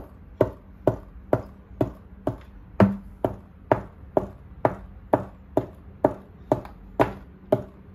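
A small pick chipping steadily into the clay block of a toy dinosaur fossil dig kit: sharp taps at a regular pace of about two a second, one a little harder about three seconds in.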